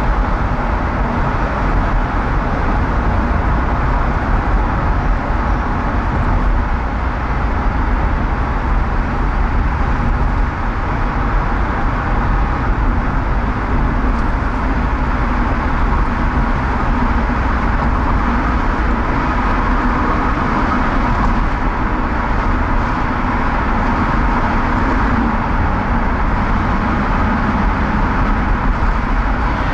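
Steady rumble of a car driving at road speed, tyre and engine noise heard from inside the car.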